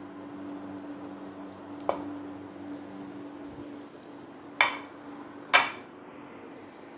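Two sharp, ringing clinks of kitchen crockery or a utensil about a second apart, after a lighter knock a couple of seconds earlier, over a steady low hum.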